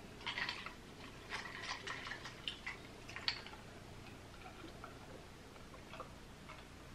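Ice cubes clinking against a drinking glass of water as it is lifted and tipped to drink: a run of light clinks over the first three seconds or so, then only a few faint ticks.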